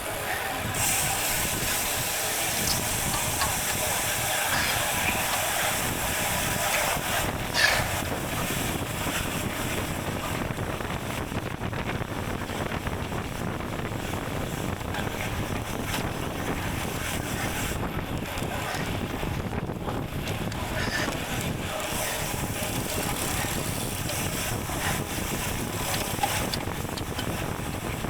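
Steady wind rushing over the microphone of a moving bicycle rider, an even hissing rush, with a brief louder gust or knock about seven and a half seconds in.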